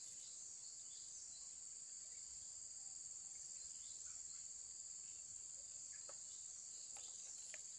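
Steady, high-pitched chorus of insects such as crickets, droning without a break, with a few faint clicks near the end.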